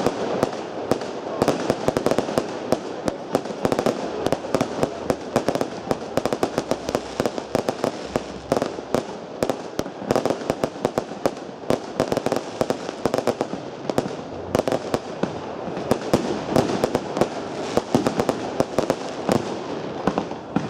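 Aerial fireworks display: many shells bursting in quick succession, a dense run of sharp bangs mixed with crackling, with no let-up.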